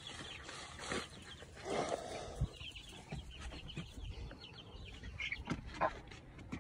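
Chickens clucking softly, with short scattered calls, as they gather at a dish of soil holding dug-up cutworms.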